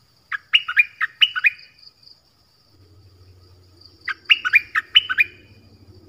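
Stripe-throated bulbul singing: two short phrases of about six quick sliding notes each, a few seconds apart.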